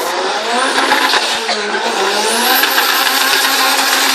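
Drag-racing car's engine accelerating hard down the strip, its pitch rising over the first couple of seconds and then holding steady, with tyre noise.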